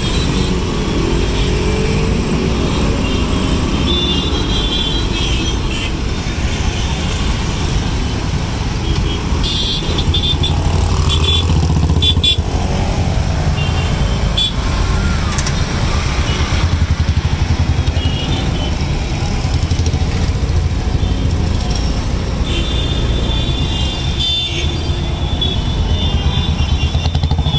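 Dense city traffic heard from a moving auto-rickshaw: a steady low engine rumble with motorcycles around, and vehicle horns tooting several times, the longest near the end.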